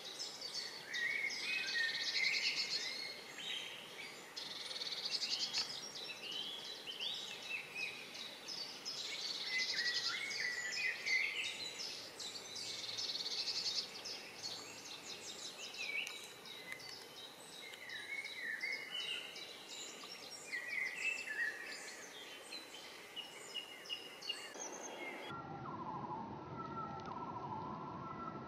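Several songbirds singing over a steady outdoor background, in repeated high phrases every second or two. About three seconds before the end the sound cuts abruptly to a duller background with fainter, lower calls.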